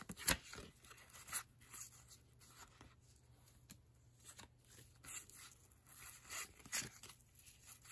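1990 Upper Deck baseball cards, stiff glossy cardstock, sliding and flicking against each other as a stack is thumbed through by hand: soft scattered rustles and clicks, with a few louder flicks, the loudest just after the start.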